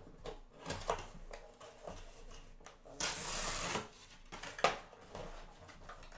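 A cardboard trading-card box being handled and opened by hand: light taps and clicks of the card stock, then a rough scraping rustle of cardboard lasting almost a second, about three seconds in.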